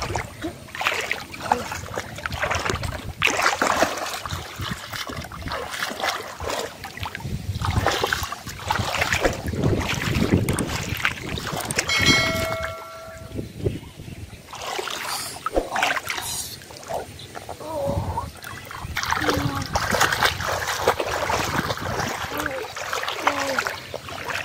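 Shallow muddy water splashing and sloshing in irregular bursts as hands grope through it to catch fish, with a short electronic beep about halfway through.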